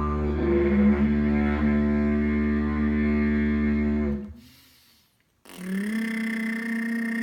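Didgeridoo drone with the player's voice toning the vowel "E" over it, held steady until about four seconds in. After a short pause the same "E" is toned again with the lips alone, a higher steady buzz without the deep drone.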